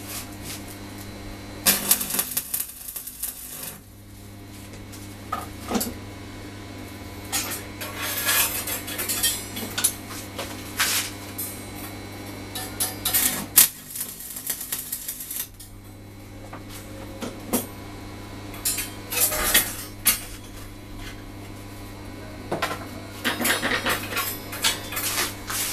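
Short crackling bursts of stick-welding tack welds on a steel-rod frame, alternating with clinks and clanks of the steel rods knocking against the steel plate as the frame is handled. A steady low hum runs underneath.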